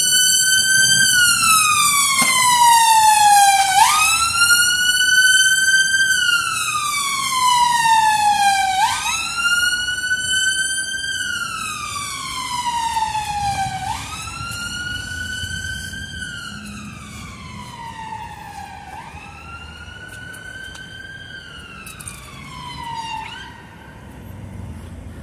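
Emergency vehicle siren on a wail setting: each cycle rises quickly and falls slowly over about five seconds. It grows steadily fainter as it moves away and stops about a second before the end.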